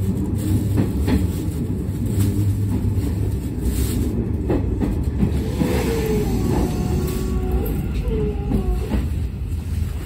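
Steady low rumble inside a Hanshin commuter train car standing at a station, with a few faint wavering tones in the second half.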